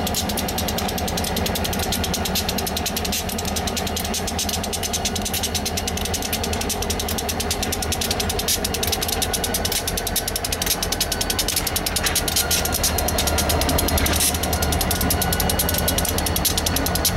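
Pair of EMD GP35 diesel locomotives running as a slow freight train rolls past, with a steady low engine drone and fast, even clicking and rattling from the train. It grows louder in the second half as the locomotives draw near.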